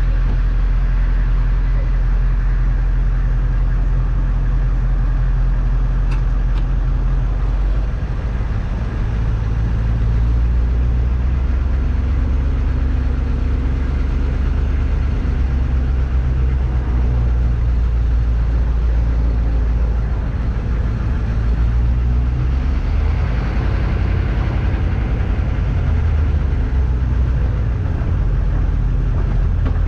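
HMMWV's V8 diesel engine running under way, heard from inside the cab as a loud, steady low rumble. Its note shifts about eight seconds in and again around twenty seconds in.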